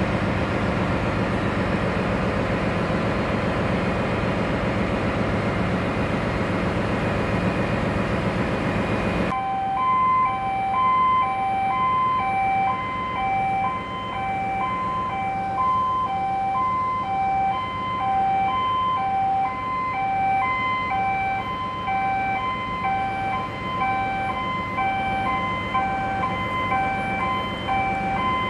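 Steady, dense engine-room machinery noise. About nine seconds in it changes abruptly to a duller hum, overlaid with a steadily repeating two-tone high-low beeping like an alarm sounder.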